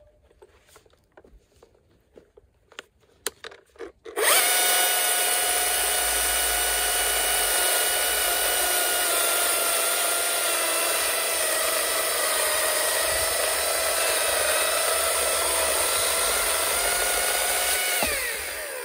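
Husqvarna T540iXP battery chainsaw on a standard BLI 200 battery, at full power with eco mode off, cutting through a dense, seasoned holm oak log: a steady electric motor whine with the chain rasping through hard wood. It starts about four seconds in after a few light clicks, and near the end the motor winds down with a falling whine.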